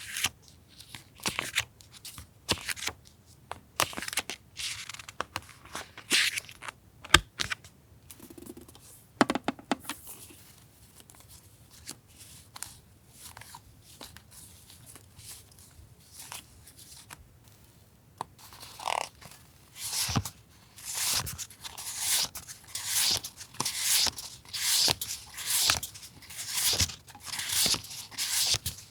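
Paper and stationery being handled at close range: irregular rustles and small clicks, then from about twenty seconds in a regular run of short rasping strokes, roughly one and a half a second, like paper being torn or cut.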